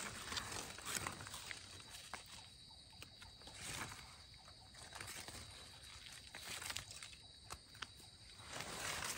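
Dry leaf litter rustling, with scattered light clicks and scrapes from hands and a knife as a wild mushroom is cut from the forest floor and picked up. The rustling comes in short swells a few seconds apart.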